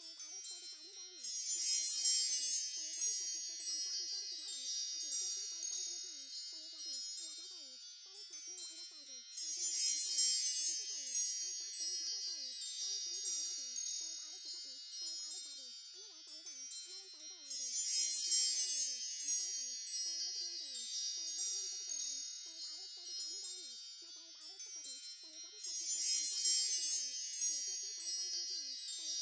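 Wind chimes tinkling, in a loop that swells about every eight seconds, with a faint wavering sound low underneath.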